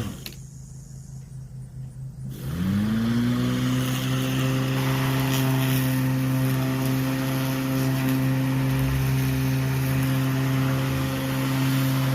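Black & Decker LawnHog electric mower motor cutting off abruptly, then starting again about two and a half seconds later, rising in pitch to a steady running hum.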